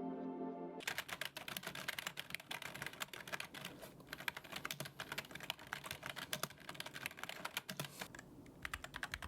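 Fast typing on a Keychron K2 mechanical keyboard: a dense run of key clicks, with a brief lull near the end. Background music cuts off under a second in.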